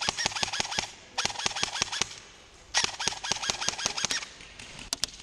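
Airsoft electric rifle (AEG) firing three short full-auto bursts, a rapid mechanical clatter of evenly spaced shots. Two sharp clicks follow near the end.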